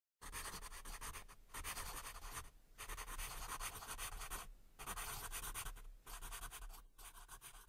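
Coloured pencils scribbling on paper in long rapid strokes, broken by about four short pauses. The sound starts abruptly a moment in.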